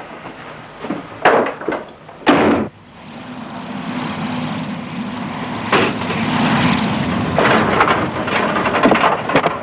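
A few sharp knocks, then steady engine noise with a low hum that slowly grows louder.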